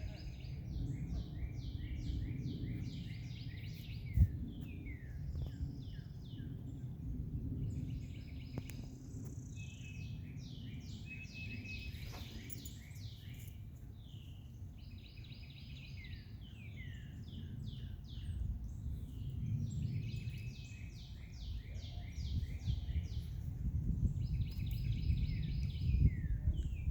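Songbirds singing: repeated phrases of quick, falling notes every few seconds, over a low steady rumble, with a single sharp knock about four seconds in.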